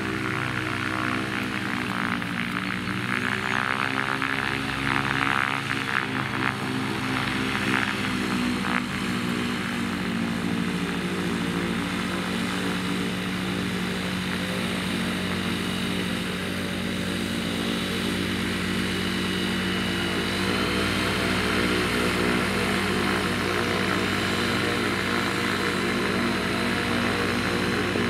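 AutoGyro MTO Sport gyroplane's engine and pusher propeller running while it taxis. The engine note dips and rises over the first several seconds, then holds steady, and steps up a little, slightly louder, about two-thirds of the way through.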